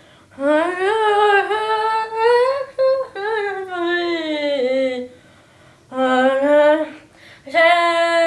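A boy singing alone with no accompaniment, in a high voice, holding long notes that slide up and down, in four phrases with short breaths between them.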